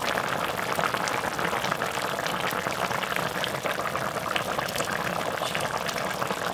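Soy-sauce braised chicken stew boiling hard in a pot: a steady bubbling with many small pops.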